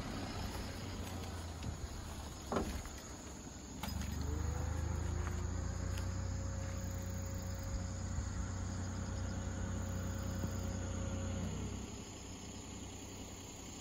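A motor spins up about four seconds in, runs with a steady hum for about seven seconds, then winds down and stops.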